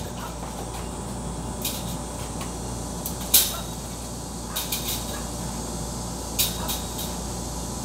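Eggs being picked up and laid on their side in an incubator egg rack: a few light, scattered clicks of eggshell against shell and plastic, the sharpest about three seconds in, over a steady low hum.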